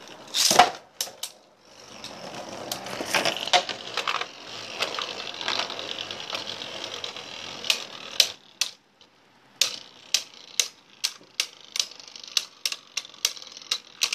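Archer Hercules 13 Eternal and Winning Valkyrie Beyblade Burst tops launched into a clear plastic stadium with a sharp snap about half a second in. They spin with a steady whirr and scattered clashes, then knock against each other and the stadium in a quick run of sharp clicks, about three a second, from about halfway through.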